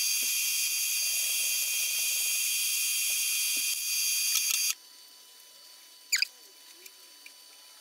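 Drilling machine running with a steady whine, its bit raised clear of the work; the whine stops suddenly about five seconds in. About a second later comes a single short squeak that rises in pitch.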